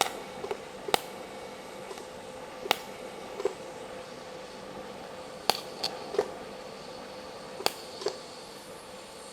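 TIG welding on a sheet-steel patch panel: a faint steady hum and hiss from the arc, broken by several sharp clicks.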